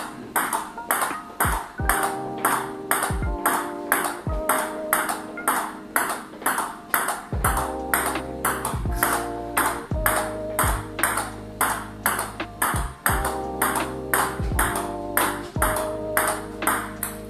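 Table tennis ball in a short push rally, clicking sharply about twice a second as it strikes rackets faced with Tibhar Hybrid K3 and K3FX rubber and bounces on the table. Background music plays underneath and gains a bass line about seven seconds in.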